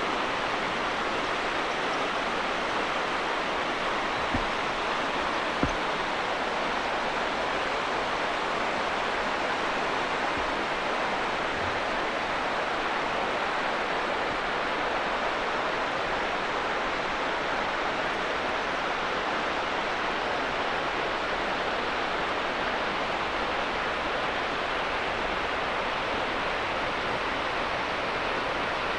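Steady rushing of a mountain river over shallow rapids, even and unchanging, with two faint clicks about four and a half and six seconds in.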